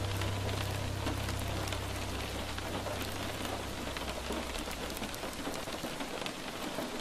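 Steady rain falling on a hard surface, with a dense patter of small drop ticks. A low held note from the song's ending fades away during the first few seconds.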